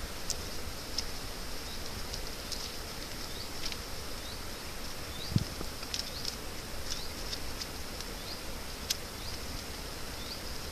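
Steady high-pitched chirring of insects, with short rising chirps over it every second or so. Scattered light clicks come from the thin rods being bent and woven by hand.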